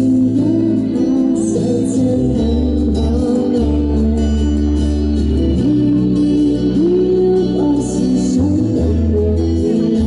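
A woman singing a pop song live into a handheld microphone over a backing track with sustained bass notes and guitar.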